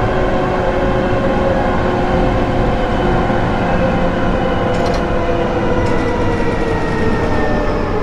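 Keihin-Tohoku Line electric commuter train decelerating to a stop, heard from inside the car: steady running noise with motor tones slowly falling in pitch as it slows, and a couple of faint ticks about five and six seconds in.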